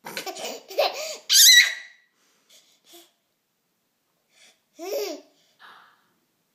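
A toddler with the hiccups laughing and babbling in short bursts, loudest and highest-pitched in the first two seconds, with a few faint short sounds and one more laugh about five seconds in.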